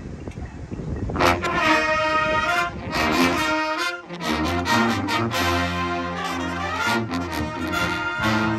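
A marching band's brass and woodwinds playing an opening piece. After about a second of faint background noise the full band comes in loudly. It breaks off briefly near four seconds, then goes on with sustained chords carried by strong low brass.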